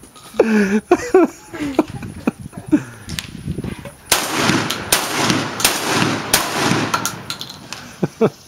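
Baikal MP-153 12-gauge semi-automatic shotgun firing four shots in quick succession, a bit under a second apart, each with a short echo after it.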